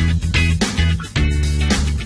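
Upbeat background music with plucked guitar over a steady bass line.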